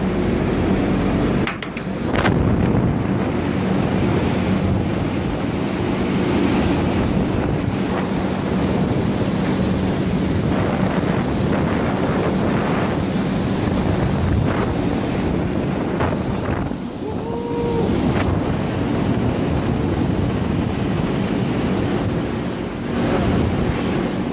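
Running Marley cooling tower heard from inside: water cascading through the tower like steady surf, under the steady hum of the fan drive. About two-thirds of the way through, a short high tone sounds.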